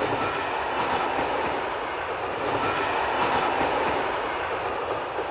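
Train running along the rails: a steady rumble and rush of wheels and carriages, with a few faint clacks of the wheels over rail joints.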